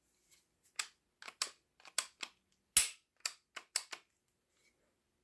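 Stoeger STR-9S Combat pistol being worked by hand: a run of about ten sharp clicks and snaps of its slide over some four seconds, the loudest a hard snap near the middle.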